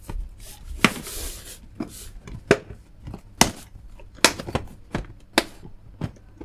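Clear plastic compartment organiser box being handled and turned over: irregular sharp plastic clicks and knocks, with a brief rustle of the bagged components inside sliding about a second in.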